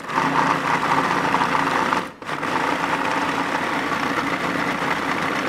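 Food processor motor running, chopping and blending a thick corn batter; it stops for a moment about two seconds in, then runs again.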